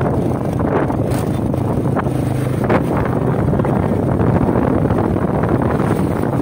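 A vehicle's engine running steadily while driving, with wind rushing over the microphone and a few brief rattles.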